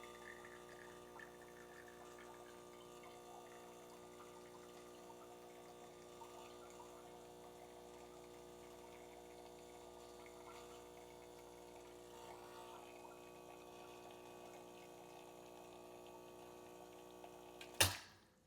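Espresso machine pump humming steadily during a slow-running shot, with espresso trickling into the cup. Near the end a sharp click as the shot is stopped, and the hum cuts off.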